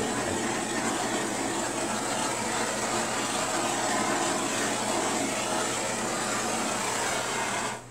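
Handheld butane torch flame hissing steadily as it is passed over wet acrylic paint to pop air bubbles, shut off abruptly near the end.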